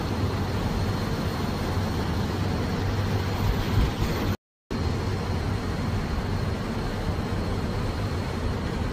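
Loud, steady noise of aircraft engines running, a deep rumble with a thin high whine over it. It breaks off for a moment about four and a half seconds in, then carries on much the same.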